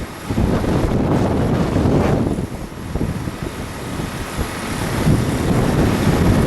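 Strong gusting wind buffeting the microphone, a low rumbling rush that eases a little midway and builds again toward the end.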